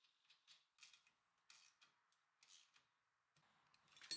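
Faint, irregular light metallic clicks and scrapes of steel nuts and washers being threaded by hand onto M8 bolts through a steel caster plate.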